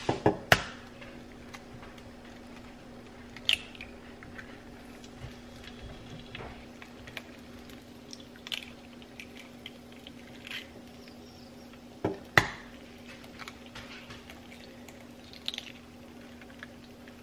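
Eggs cracked one after another against an electric griddle: a sharp shell crack every few seconds over a steady low hum.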